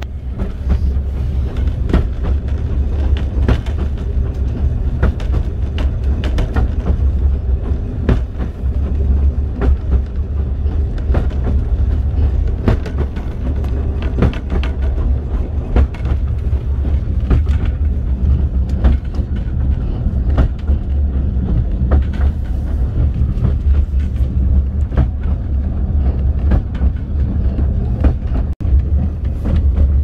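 Narrow-gauge railway carriage running along the track, heard from inside the compartment. A steady low rumble is broken by frequent irregular knocks and rattles from the wheels and rail joints.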